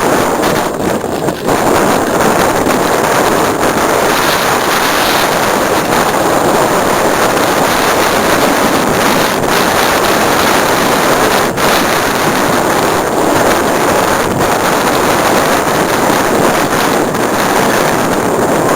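Steady rushing wind noise on the camera microphone while riding a mountain bike down a trail, with a few brief knocks.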